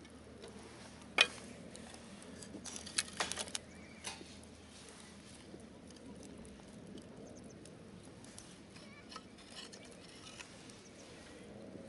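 A single sharp click about a second in, then a quick run of clicks and knocks around three seconds in, over a faint low background.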